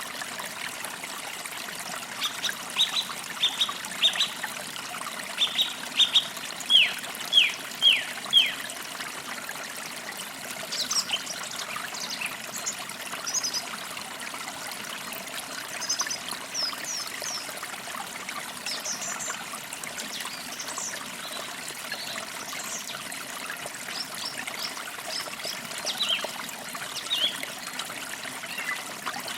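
Creek water trickling steadily over stones, with birds chirping: a run of quick descending notes in the first third, then scattered high chirps.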